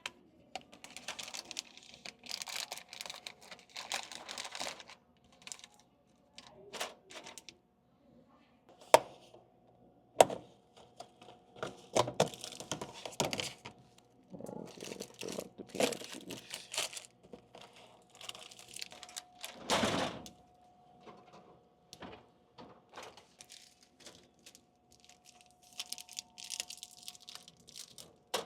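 Plastic snack packets crinkling as they are handled and loaded into a vending machine. Two sharp knocks come about nine and ten seconds in, over a faint steady hum.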